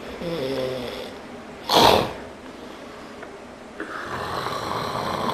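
Man snoring in his sleep: a pitched, wavering snore, then a short loud noisy burst about two seconds in, and another rough snoring breath near the end.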